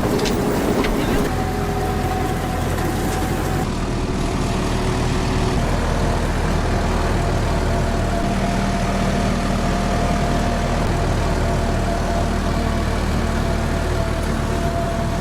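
Heavy farm machinery running steadily, a constant engine drone with a faint steady whine over it.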